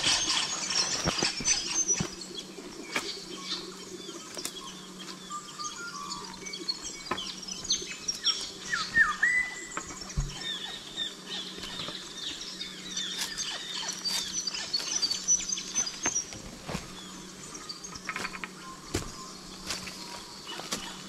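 Birds chirping and calling, over the crunch and scuff of footsteps on dry leaf litter and stones, with scattered sharp clicks and snaps.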